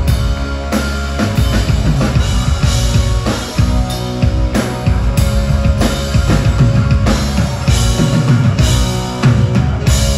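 Live rock band playing loudly: a drum kit pounds with frequent cymbal crashes over electric bass, guitar and keyboards.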